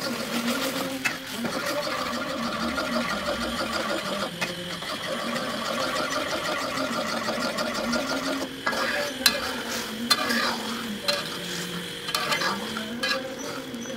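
A metal spatula stirs and scrapes around a wok of simmering chili sauce, with a light sizzle from the bubbling sauce. Several sharper scrapes come in the second half.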